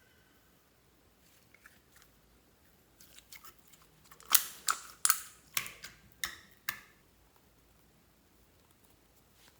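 Slime being squished and pulled by hand, giving a run of about six sharp, wet pops and crackles from about three seconds in to about seven, with only faint room tone before and after.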